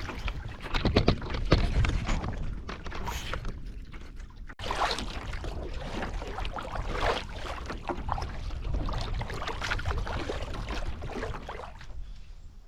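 Canoe paddling: a paddle dipping and splashing in lake water, with wind rumbling on the microphone from a headwind.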